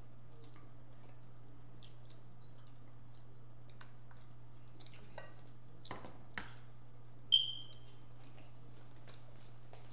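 Quiet eating sounds of king crab legs being picked apart: scattered small clicks and cracks of shell. About seven seconds in, one sharp clink with a brief ring, a hard piece striking a plate, over a steady low hum.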